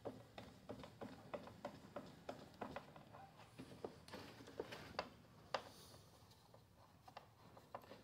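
Faint, quick clicks and taps of hand work on a Stihl backpack blower's plastic housing as the screws go back in, several a second at first and thinning out after about five seconds.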